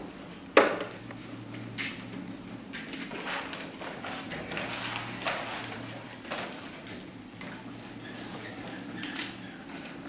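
Scattered knocks and clicks, one sharp knock about half a second in the loudest, over a steady low hum.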